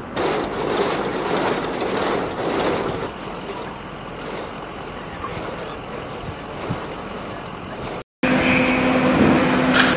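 Steady rushing outdoor noise like wind and distant aircraft on a flightline, louder for the first three seconds. Just after eight seconds it cuts out completely, then comes back as a louder, steady machine hum with a few fixed tones.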